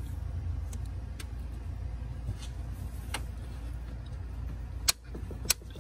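Scattered sharp metal clicks and clinks from a socket and bit being worked onto an ignition coil bolt, the loudest about five seconds in. Under them runs a steady low rumble.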